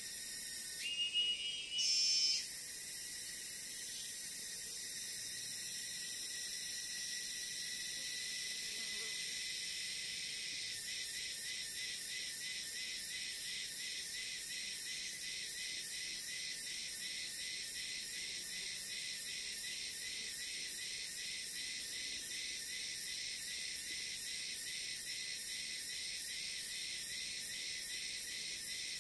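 Forest insect chorus: a steady high-pitched drone of crickets or cicadas, with a short louder call about a second in. From about eleven seconds in, a second insect joins, pulsing evenly at two to three beats a second.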